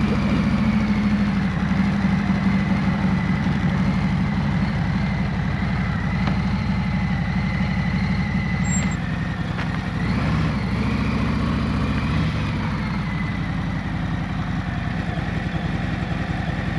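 Harley-Davidson V-twin motorcycle engine idling steadily just after a cold start in below-freezing air, warming up.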